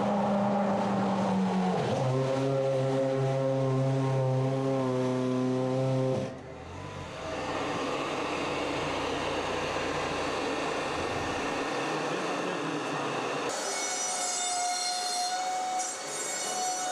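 Sauber C30's Ferrari 2.4-litre V8 Formula 1 engine running at low revs as the car comes down the pit lane. Its pitch drops about two seconds in, and the engine sound cuts off suddenly about six seconds in. A steady hiss with a low rumble follows, and near the end several steady high-pitched whining tones set in.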